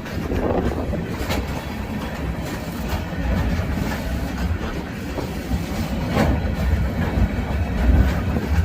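Freight train passing: a steady low rumble of rolling railcars with occasional sharp clacks of wheels over rail joints.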